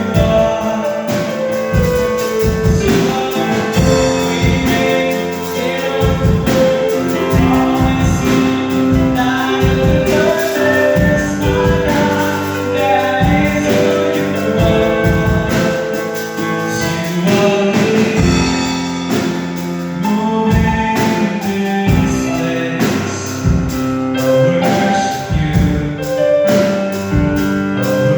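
Gospel music: voices singing over a band, with a steady drum beat and sustained instrument chords.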